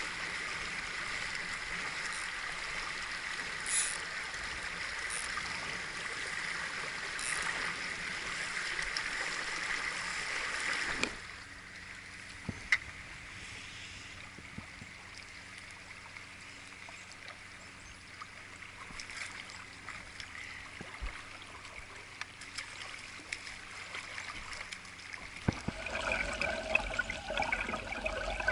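Shallow river running over rocks: a steady rush of flowing water that drops suddenly to a quieter flow about eleven seconds in, then grows louder again near the end.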